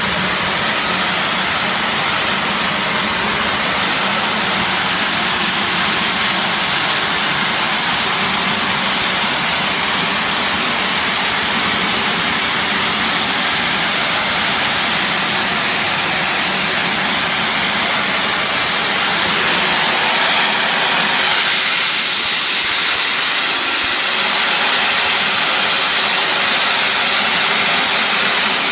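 High-pressure water jet from an electric car-wash pressure washer hissing steadily out of the spray lance, with the electric motor and pump running beneath it. It grows a little louder and brighter about three-quarters of the way through.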